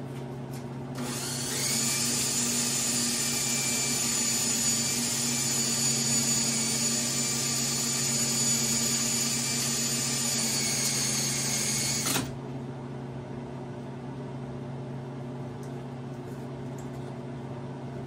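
Electric drill running steadily with the Delta 62-110 motor's armature chucked in it and spinning, so it can be cleaned. It starts about a second in, holds a steady whine, and cuts off suddenly about twelve seconds in.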